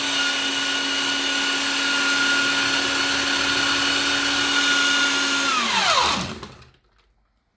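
Countertop blender motor running steadily at one pitch, its blade churning water and chopped-up in-ear earphones. About five and a half seconds in it is switched off and its pitch falls as it spins down to a stop.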